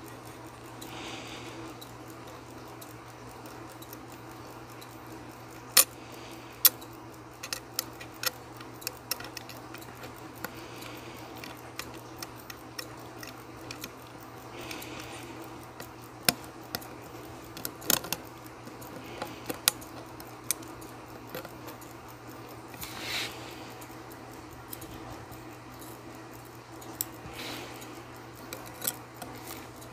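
Steel tweezers and pegwood clicking and tapping against the metal parts of a watch movement during reassembly: scattered sharp ticks, in small clusters, about a dozen in all. Under them runs the steady hum of a clothes dryer.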